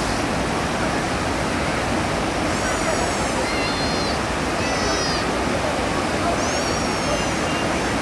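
Steady roar of a white-water mountain river rushing over boulders. Several short high-pitched sounds come over it from about two and a half to seven seconds in.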